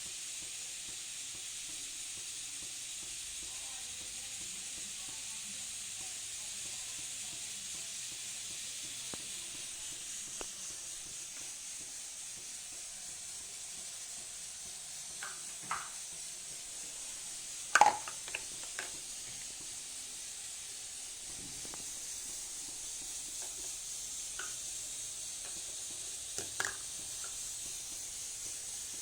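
Electric baby bottle warmer and sterilizer heating water, giving a steady hiss and sizzle. A few short clicks come through, the loudest about 18 seconds in.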